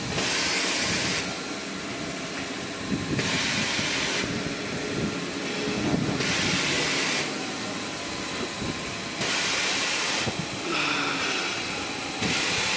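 Automatic maxi roll paper band saw cutting machine running, a steady mechanical hum with a burst of hiss about once every three seconds, five times in all.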